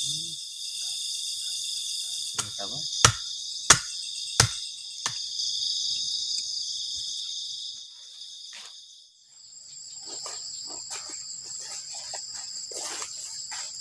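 Forest insect chorus: a steady, high-pitched chirring drone, which thins to a thinner, higher whine about two-thirds of the way through. A run of about five sharp knocks, roughly two-thirds of a second apart, comes a few seconds in. Faint rustling follows near the end.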